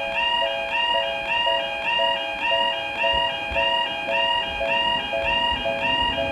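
Japanese level crossing warning bell ringing its "kan-kan" alarm: evenly repeated dings alternating between two pitches, about two a second.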